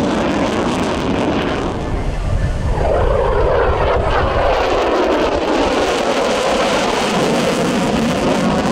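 F-35C Lightning II fighter jet's single Pratt & Whitney F135 engine running loud and steady on afterburner as the jet passes overhead. The tone of the roar shifts about three seconds in.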